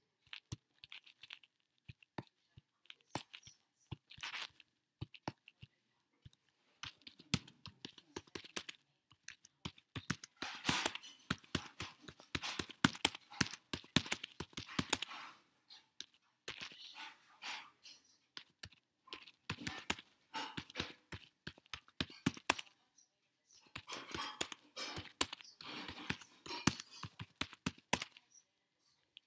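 Computer keyboard typing in irregular bursts, with a few scattered single clicks in the first several seconds.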